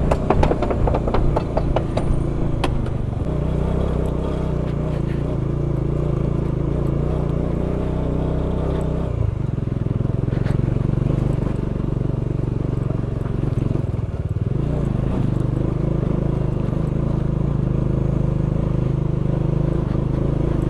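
Bajaj Dominar 400's single-cylinder engine running steadily as the motorcycle rides off a wooden plank bridge onto a rough gravel track. There is clattering over the planks in the first couple of seconds, and the engine note shifts about three and nine seconds in.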